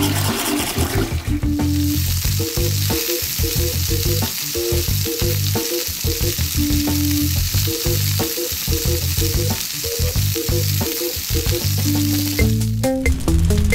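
Sound effect of food sizzling in a frying pan: a steady frying hiss that starts about a second in and stops near the end. It plays over background music with a repeating tune.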